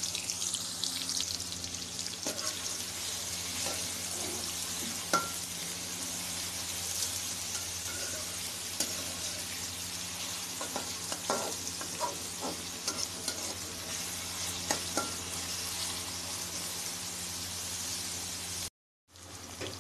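Chopped onions sizzling steadily in hot cooking oil as they brown, stirred now and then with short sharp clinks against the pan.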